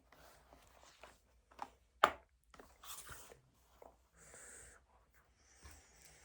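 Desk sounds of studying: a pen scratching and paper rustling in small irregular strokes, with one sharp click about two seconds in.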